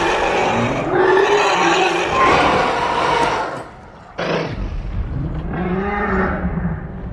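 Dragon roars and growls from an animated film soundtrack: several drawn-out calls that rise and fall in pitch, then a brief lull and a sudden loud roar about four seconds in, followed by more roaring.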